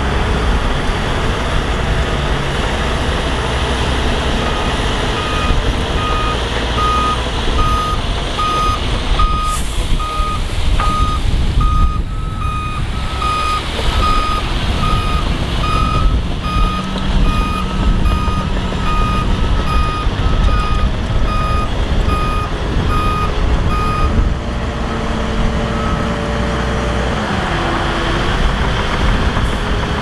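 A dump truck's reversing alarm beeping steadily over its diesel engine running. The beeping starts a few seconds in and stops about four-fifths of the way through, leaving the engine.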